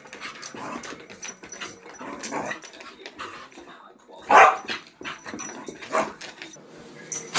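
Small dog growling and giving short barks as it spins after its tail, several separate outbursts with the loudest bark about four and a half seconds in.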